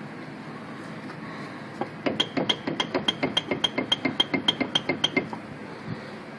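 A quick, even run of metallic clicks, about seven a second for some three seconds, each with a high ringing note.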